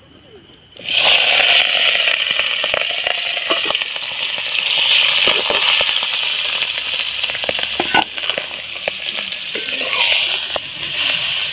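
Shelled samuk (freshwater shellfish) meat hitting hot oil in a kadhai, sizzling loudly from about a second in and frying steadily, with scattered clicks of a spatula stirring and scraping the pan.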